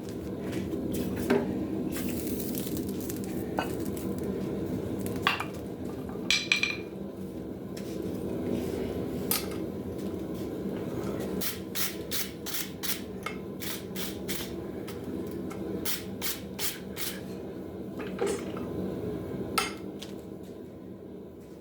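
Light metallic clinks and taps of steel tools on hot steel at the anvil, with a quick run of light taps, about two or three a second, through the middle, over a steady low hum.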